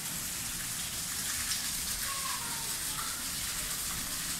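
Steady rush of falling water from an indoor waterfall, with a couple of faint short falling notes over it.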